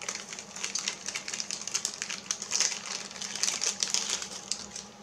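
Thin clear plastic bag crinkling in quick, irregular crackles as a plastic model kit part is handled and unwrapped from it.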